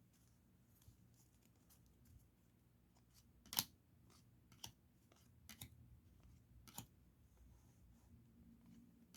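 Near silence with a few faint, sharp clicks of trading cards being handled and flipped through a stack, the clearest about three and a half seconds in.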